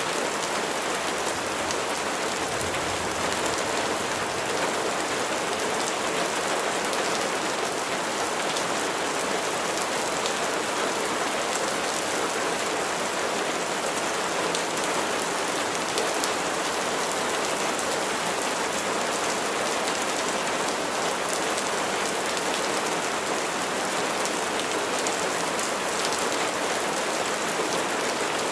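Steady rain falling, an even hiss of many drops with fine pattering on a surface.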